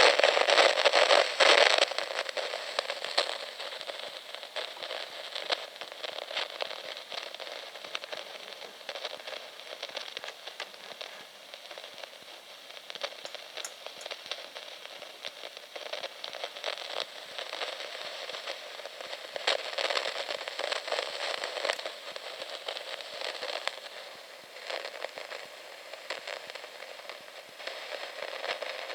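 A clock giving off dense, irregular crackling, a fast stream of fine clicks. It is loudest for the first couple of seconds, then swells and fades again a few times.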